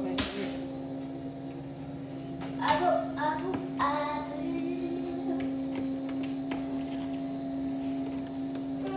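A sharp tap just after the start, then a young child's high-pitched voice sounding out for about a second and a half around three seconds in, over a steady low hum.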